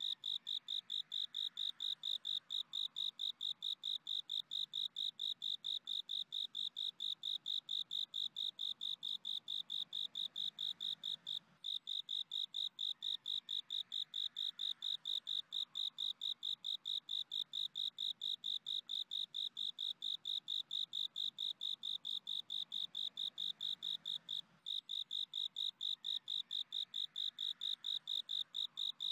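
Crickets chirping: a high-pitched, even chirp repeating about four times a second, with two brief pauses, one about a third of the way through and one about two-thirds through.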